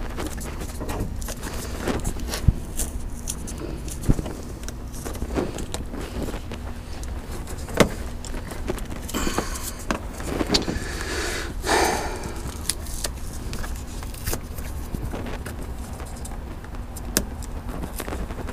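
Hands working a wiring harness and its plastic connectors: a few sharp clicks, with rustling and scraping of wires and plastic for a couple of seconds near the middle.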